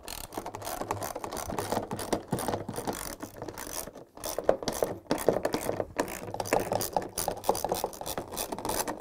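Socket wrench ratchet clicking rapidly as 10 mm bolts are backed out of a plastic washer outer tub. The clicking pauses briefly about four seconds in.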